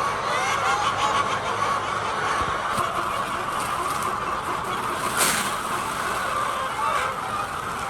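A large flock of laying hens clucking together, a dense and steady chorus of overlapping calls.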